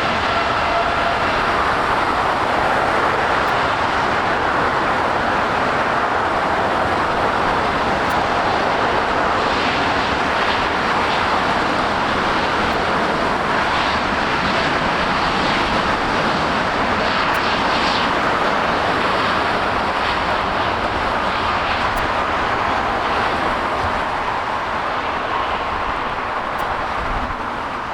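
Jet airliner's engines, a loud, steady roar as the plane passes close by, slowly fading near the end.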